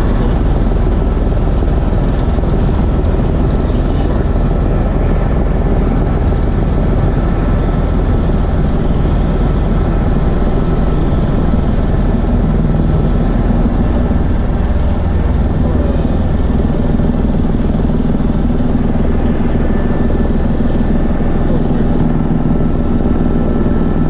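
Steady, loud engine and rotor noise of a tour helicopter in flight, heard from on board, with a faint steady whine above the low rumble.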